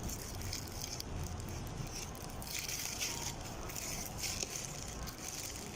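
Eating sounds: chewing, with a few short crackly bursts about halfway through.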